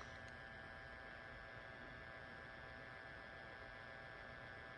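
Near silence: a faint steady hum, the dead air of a weather radio station that has stopped transmitting audio, heard through the receivers.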